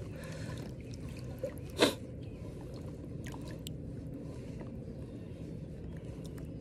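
Creek water running steadily, with a few faint drips and one short sharp burst about two seconds in, the loudest moment.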